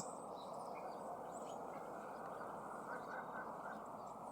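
A steady rushing outdoor noise, with faint short high bird chirps scattered through it.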